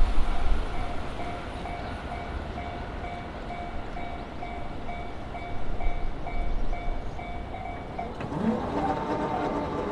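Japanese level-crossing warning bell ringing as a steady repeating two-tone ding, about two strikes a second, with the tail of a passing train fading away at the start. The bell stops about eight seconds in, and music starts near the end.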